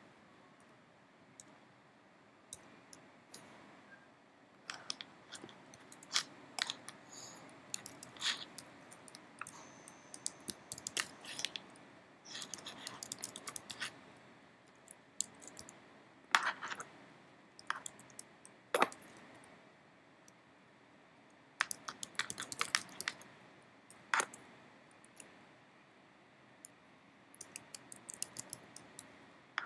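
Computer keyboard being typed on: irregular runs of keystroke clicks with pauses between them.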